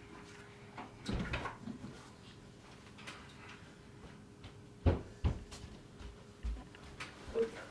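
A few short knocks and thuds of movement and handling near a door, like a door or cupboard knocking. There is a cluster about a second in and a sharp knock about five seconds in, over a faint steady hum.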